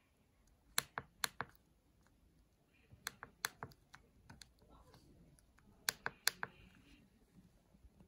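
Membrane keypad of a DSP 0501 CNC engraving-machine handle controller being pressed by finger, the keys clicking in three quick runs of about four presses each.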